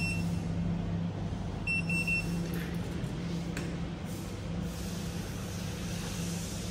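Short high beeps from a fiber laser welding machine's touchscreen control panel as its swing-setting keys are pressed: one beep at the start, then three quick beeps about two seconds in. A steady low hum runs underneath.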